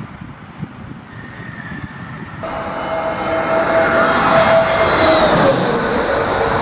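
Airbus A320neo jet engines passing low overhead on approach, a loud jet whine with a steady tone that dips in pitch as it goes past. The first couple of seconds hold a fainter engine sound from the aircraft on the runway, cut off abruptly by the loud jet noise about two and a half seconds in.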